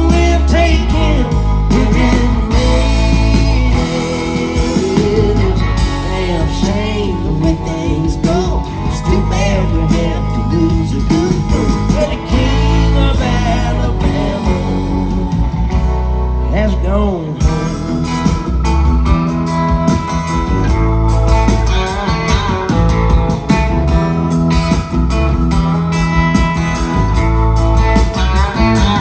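Live country band playing a song loudly: acoustic guitar, electric guitar, bass guitar, keyboard and drums, with a voice at times.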